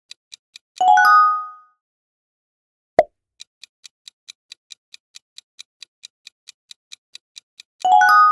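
Quiz-game sound effects: a countdown clock ticking about four times a second stops for a bright multi-tone chime marking the correct answer. A short pop comes about three seconds in as the next question appears, the ticking resumes, and the chime sounds again near the end.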